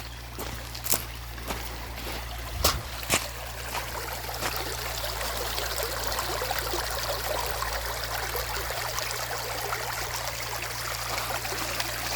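River water flowing in a steady rush. A few sharp knocks in the first three seconds.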